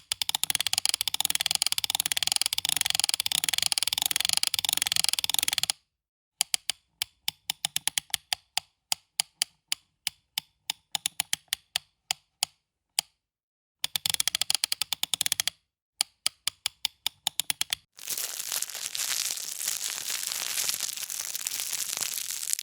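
Rattling and sharp clicking, as from a shaken hard rattle: about six seconds of fast continuous rattling, then separate clicks at about four a second, a short second bout of rattling and more clicks. This is followed by a steady hiss that lasts about four seconds and stops abruptly.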